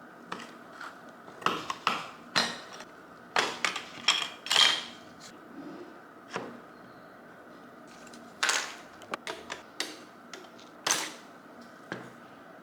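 Hand tools and small metal parts clicking, clacking and knocking at irregular moments, with a faint steady hum underneath.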